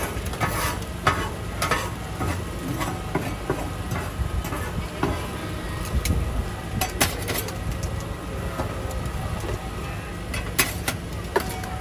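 Metal spatula and scraper clinking and scraping on a steel teppan griddle while okonomiyaki cook, with scattered sharp taps over a steady low rumble.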